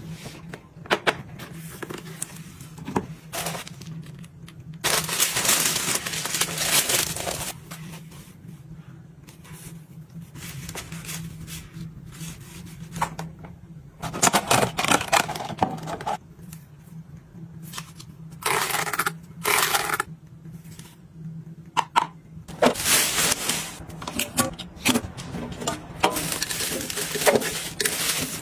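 Close-up handling of product packaging: plastic film and a clear plastic box crinkling and rustling, with scattered clicks and taps, in several bursts a few seconds long. A faint steady low hum runs underneath.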